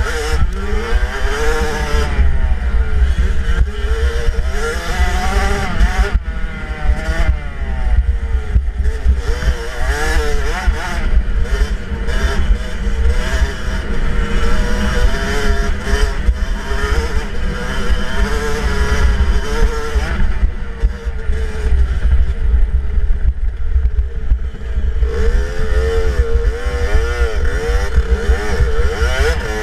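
A 65cc two-stroke dirt bike engine being ridden hard, its pitch rising and falling over and over as the throttle is opened and shut and gears change. Heard close from a helmet camera, with a steady low rumble of wind on the microphone.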